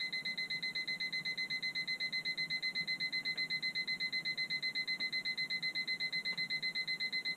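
Refrigerator temperature alarm on a home weather station, beeping in a rapid, even run of high-pitched beeps. It is the low-temperature alarm, warning that the RV refrigerator has dropped to about 32 °F, too cold.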